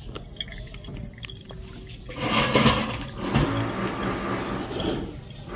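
Liquid trickling and dripping from a pour-over coffee dripper into its glass server. About two seconds in, a louder rushing sound with a low hum sets in and runs on.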